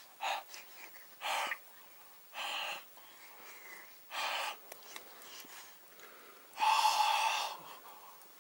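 A man huffing out short open-mouthed breaths to cool a hot mouthful of food, about four spread over the first few seconds, then a longer, louder exhale with a bit of voice in it near the end.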